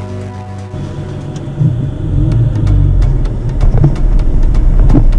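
Dacia Duster's diesel engine and Falken Wildpeak all-terrain tyres rumbling on a rough dirt track, heard from inside the cabin, with scattered clicks and knocks. The rumble gets louder about two seconds in. A music jingle fades out in the first second.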